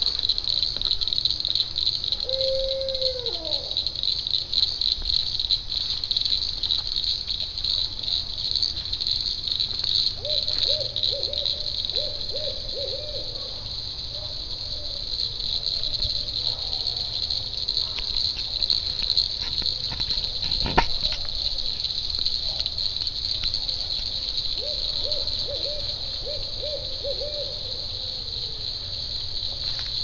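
Steady high chorus of night insects, crickets among them. An owl calls in a quick series of short hoots about ten seconds in and again near the end, and a single sharp click sounds about two-thirds of the way through.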